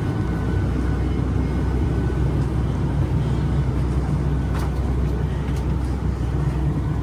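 Steady low rumble inside the cabin of a Boeing 737 MAX 8 taxiing after landing, its engines at idle. A faint click comes about four and a half seconds in.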